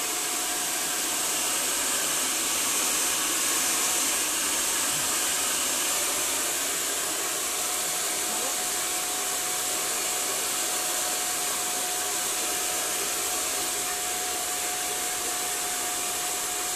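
Handheld hair dryer blowing steadily while long hair is blow-dried, a thin steady whine running through the rush of air.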